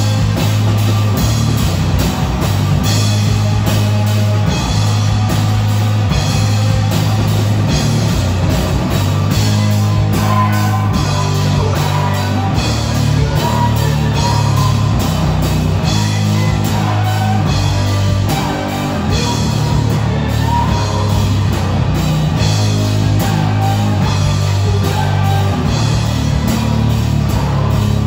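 A live rock band playing loud, heavy rock on drum kit and amplified electric guitars, with a steady, driving low end.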